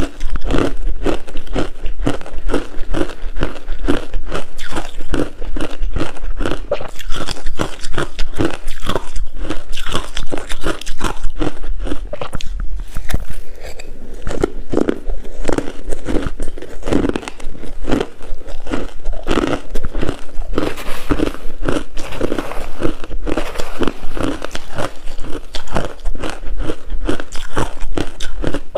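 Close-miked chewing of coarse, crunchy ice: a steady run of rapid, loud crunches as the ice is bitten and crushed between the teeth.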